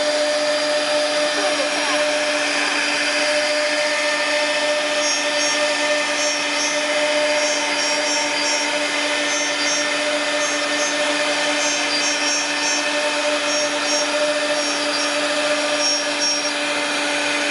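Double-head CNC wood router running and cutting outlines into a board. Its spindle gives a steady whine over an even rushing noise from the cut and the dust extraction.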